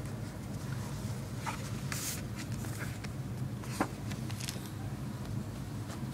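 Pages of an accordion-folded Moleskine sketchbook being unfolded by hand: scattered paper rustles and light clicks, with a longer rustle about two seconds in and a sharp tap near four seconds, over a steady low hum.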